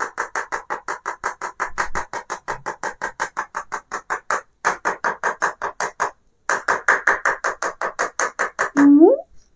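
Rapid, even tapping, about six or seven taps a second, with a couple of short pauses: a funnel tapped to shake baking soda powder down through it into a balloon. A brief rising squeak comes near the end.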